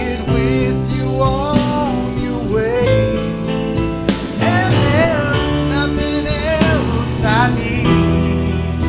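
Male vocalist singing a song into a microphone over steady instrumental accompaniment. The voice bends and wavers between held notes.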